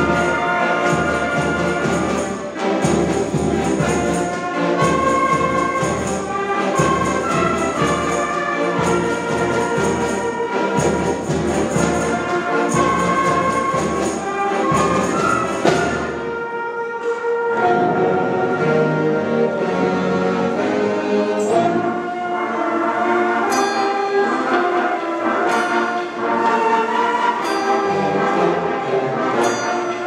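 School concert band playing, with woodwinds and brass together. A steady low beat runs under the first half. About halfway through the low end drops out and the music carries on more lightly.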